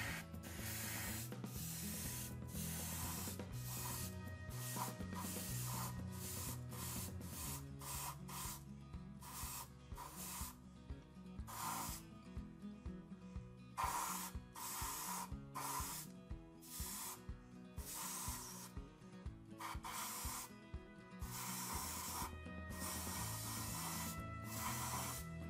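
Airbrush spraying paint in many short, irregular bursts of hiss as the trigger is pressed and released, over background music.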